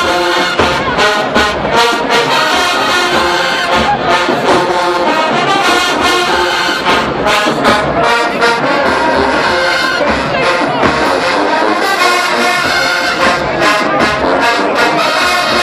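HBCU marching band playing loudly, led by its brass section with trombones and trumpets to the fore, over steady drum strokes.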